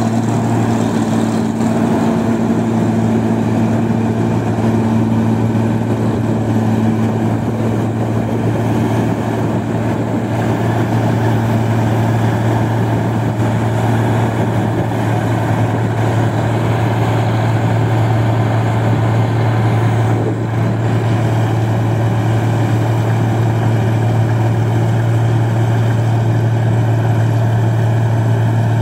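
New Holland 1545 combine harvester's engine and machinery running steadily while it harvests rice. A constant low hum with a steady higher tone above it, holding at one level throughout.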